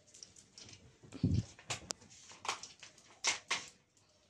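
A puppy jumping up and tugging at hanging clothes: a dull thud about a second in, then several short scrapes and knocks of paws and cloth.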